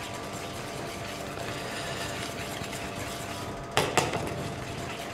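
Buckwheat and wheat flour crêpe batter being mixed in a bowl after the eggs go in, a steady stirring noise. Two sharp knocks come close together about four seconds in.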